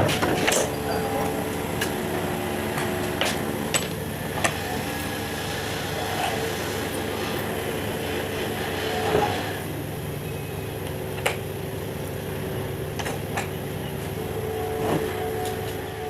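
A steady mechanical hum with several held tones, broken by a number of sharp knocks or clicks.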